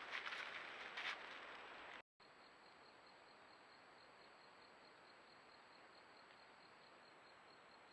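Faint outdoor recording with steady hiss and a high insect chirp, pulsing rapidly at an even pace. In the first two seconds there are a few short noisy bursts before the sound cuts briefly.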